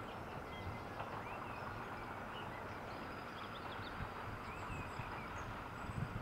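Distant English Electric Class 40 diesel locomotive approaching slowly, its 16-cylinder engine a low steady rumble, with birds chirping over it.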